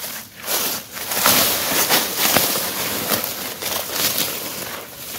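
Hand hoe scraping and chopping into dry, crumbly soil while digging up sweet potatoes, with loose earth scattering. The strokes come in a quick irregular run, about two a second.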